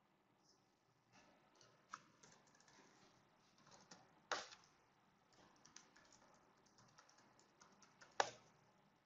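Faint, scattered clicks from a computer mouse and keyboard at a desk, with two sharper clicks about four seconds in and near the end.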